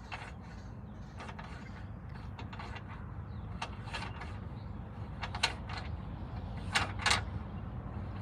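Irregular mechanical clicks and short squeaks from some hand-worked mechanism, louder in the second half, over a steady low rumble.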